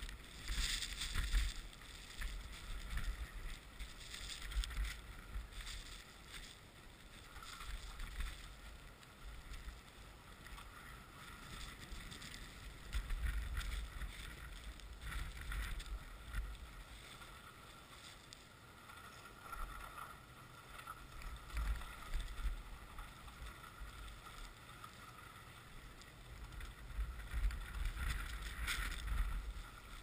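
Storm wind gusting and buffeting the microphone in surges, over a steady hiss of wind; the strongest gusts come near the start and again near the end.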